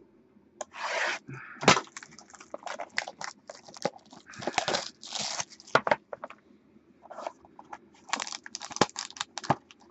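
Plastic wrapping on a box of football trading cards being torn and crinkled, in a run of irregular rustling and crackling bursts with sharp clicks.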